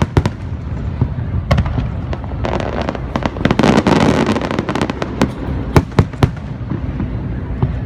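Aerial fireworks bursting: repeated sharp bangs throughout, with a dense, rapid run of small pops from about two and a half to four and a half seconds in.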